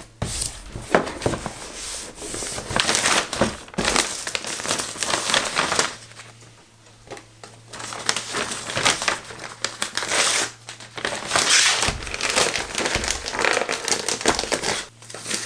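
Plastic poly mailer bag crinkling and rustling as a small cardboard box is slid into it and the bag's adhesive strip is peeled and the flap pressed shut. The rustling comes in irregular bursts with a few light knocks of the box on the table, and eases off for a moment about six seconds in.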